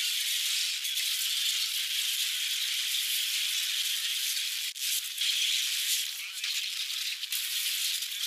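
Steady gritty crunching and scraping of broken sea ice and snow as ice blocks are pulled loose by hand. It sounds thin and hissy, with a brief break a little past halfway.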